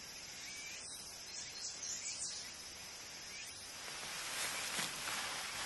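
Faint garden ambience: insects trilling steadily with a few soft high chirps, growing a little louder near the end.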